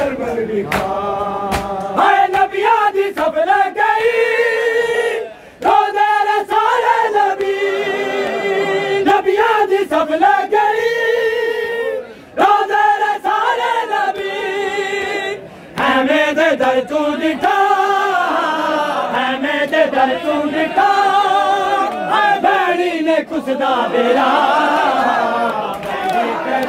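A group of men chanting a Punjabi noha, a Muharram mourning lament, together in unison, the lines sung in a wavering melody with held notes. There are brief breaks between lines three times.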